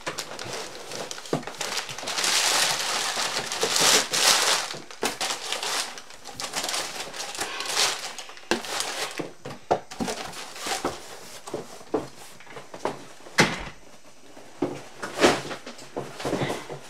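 Brown packing paper crumpling and rustling as a large package is unpacked, with a few sharper knocks in the last few seconds.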